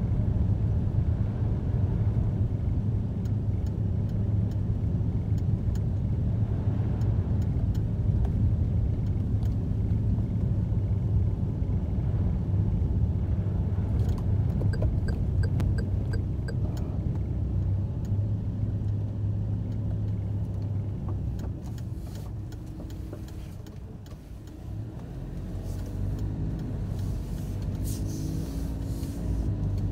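A car driving on a wet road, heard from inside: a steady engine and tyre rumble that dips about twenty-four seconds in as the car slows, then rises in pitch as it speeds up again. A short run of light, regular ticks comes about halfway through.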